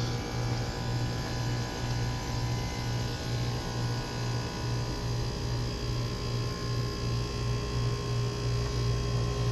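GeoStar geothermal heat pump running with a steady low hum from its compressor and blower, pulsing slightly; a deeper drone comes in about eight seconds in.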